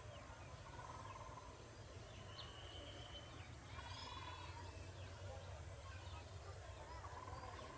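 Faint outdoor ambience: birds give a few short trilled calls over a low steady rumble.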